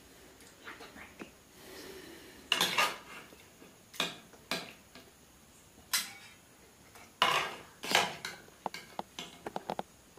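Steel ladle clinking against a steel kadai and steel serving bowls as curry is dished out: a string of sharp metal clinks, with a quick run of lighter ones near the end.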